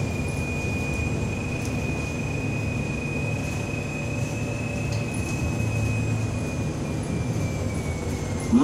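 City bus interior noise while driving at speed: a steady rumble of engine and tyres, with a high whine that holds one pitch and starts to drop near the end. A sharp knock sounds just before the end.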